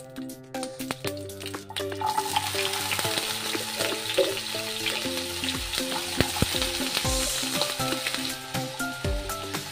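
Raw potato chunks sizzling and crackling in hot oil in a frying pan. The sizzle starts about two seconds in, with several soft thuds in the second half as more pieces drop into the pan.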